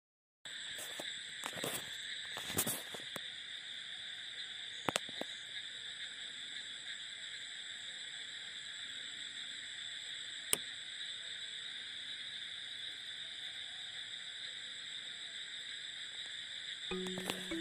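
Steady high-pitched chorus of insects, the drone of a night-time ambience, with a few faint clicks. Music notes come in near the end.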